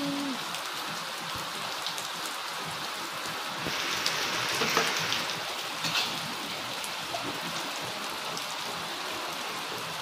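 Steady rain falling on a wet concrete courtyard: an even hiss with scattered drop ticks, a little heavier for a second or two near the middle.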